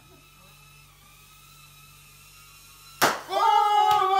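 Faint steady whine of a tiny sub-30 g drone's propellers, then about three seconds in a sharp bang as the drone pops a balloon. The bang is followed by a louder drawn-out sound that slides slowly down in pitch.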